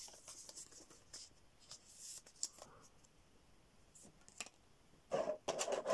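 Faint rustling and handling of foil-wrapped Pokémon card booster packs as they are lifted out of a metal tin, with a few light ticks.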